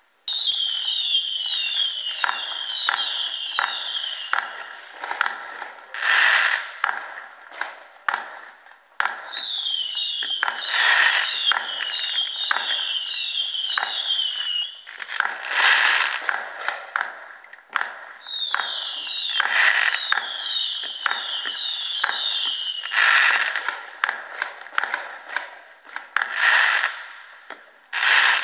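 Fireworks going off in a steady barrage of bangs, with several louder crackling bursts. Three times there is a run of a short falling whistle, repeated about twice a second for a few seconds.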